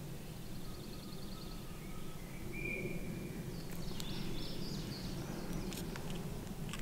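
Faint songbird calls: a quick, rapid trill, then a few thin, steady whistled notes and some short stepped higher notes, over a steady low outdoor rumble.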